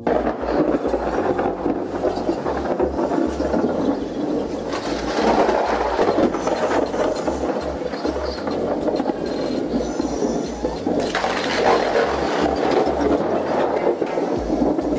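Rushing noise of a thunderstorm, wind and light rain, swelling louder twice: about five seconds in and again about eleven seconds in.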